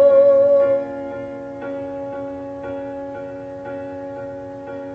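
A song's instrumental accompaniment: a singer's held note, wavering in pitch, ends about a second in, then quieter sustained chords are struck about once a second between sung lines.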